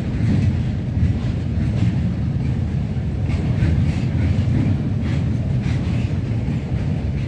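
Freight train wagons rolling past at slow speed: a steady low rumble of steel wheels on rail, with occasional clicks as wheels cross rail joints.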